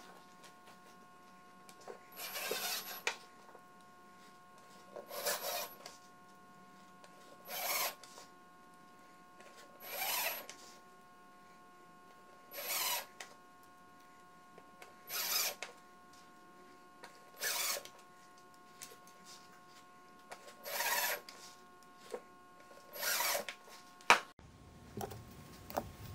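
Cordless drill-driver with a Phillips bit running in short bursts, about nine times at roughly two-and-a-half-second intervals, as it drives small screws into wood. A single sharp click near the end.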